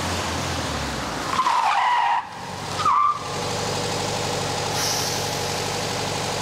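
VW Beetle's air-cooled flat-four engine running as the car comes up, then tyres squealing under hard braking: a long wavering squeal about a second in and a short one near three seconds. After that the engine idles steadily.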